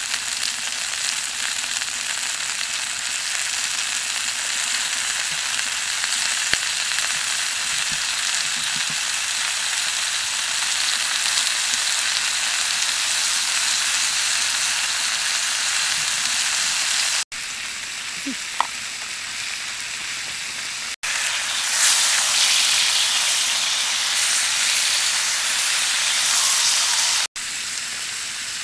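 Pork ribs sizzling on a hot stone slab over a wood fire: a steady frying hiss. It drops out for an instant three times and is louder for several seconds in the second half.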